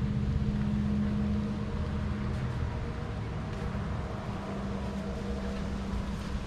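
A steady low machine hum made of a few held tones over a low rumble, easing slightly a couple of seconds in.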